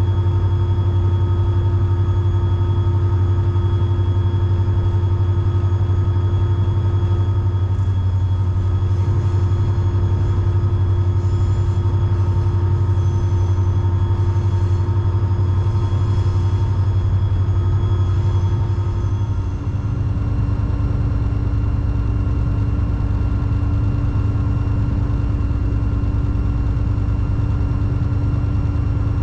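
EMD SD40-3 diesel-electric locomotive running under way, its turbocharged 16-cylinder two-stroke diesel giving a steady low drone with higher steady whining tones. About two-thirds of the way through the engine note steps down to a lower pitch and carries on steadily.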